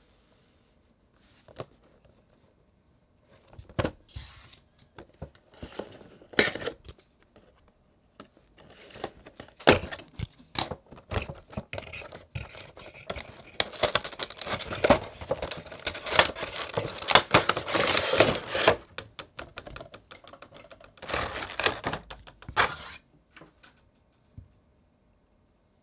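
A Funko Pop box being opened by hand, its cardboard and plastic packaging handled. A few scattered taps and rustles come first, then a long stretch of rustling, scraping and crinkling, and a last short flurry of handling noise near the end.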